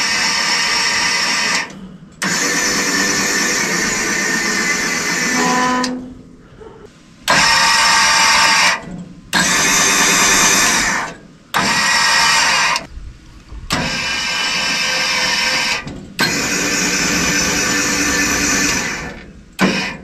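Electric RV jack motor, rigged as the power head that raises and lowers the saw head of a Woodland Mills HM130Max sawmill, running in repeated starts and stops of one to three seconds each, about seven runs in all.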